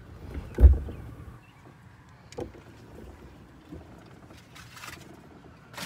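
Knocks and rattles around an electric golf cart: one heavy low thump about half a second in, then a few lighter knocks.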